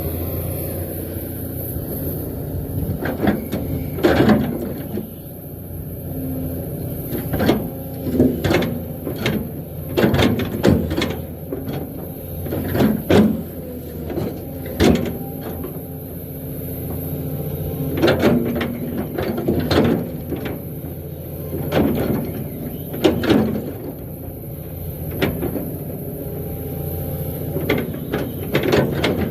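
Excavator's diesel engine running steadily, with many sharp knocks from the working machine scattered irregularly throughout.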